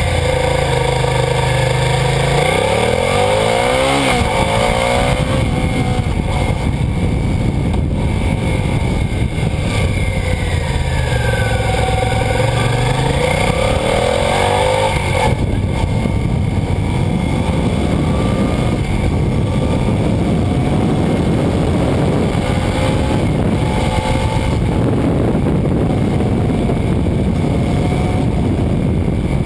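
Suzuki SV650's V-twin engine running while the bike is ridden, its pitch sweeping down and back up as the rider eases off and accelerates, over a constant rush of wind and road noise. About halfway through, the wind and road rush takes over and the engine is heard more faintly beneath it.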